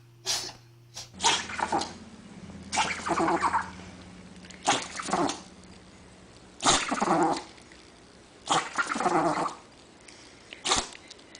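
A dog sneezing again and again, a sneeze every second or two. Two short, sharp sneezes come first, before the sound changes about a second in.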